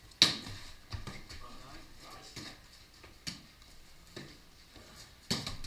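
A ball being struck by hand in play: about six sharp slaps and knocks, roughly a second apart, the loudest just after the start and another strong one near the end.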